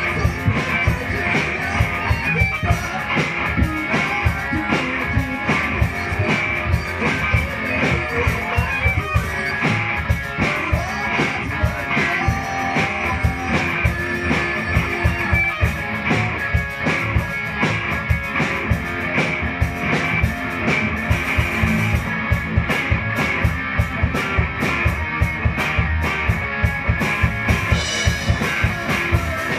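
Live band playing rock music: electric guitars and a drum kit keeping a steady beat.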